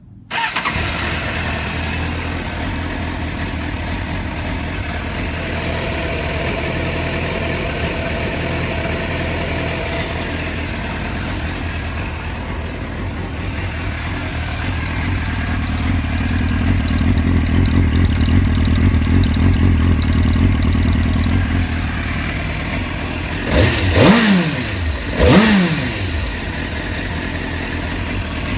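2003 Suzuki GSX-R750 inline-four motorcycle engine idling roughly, with a hesitation that the owner says sounds like it is about to stall. Near the end the throttle is blipped twice, the pitch rising and falling each time.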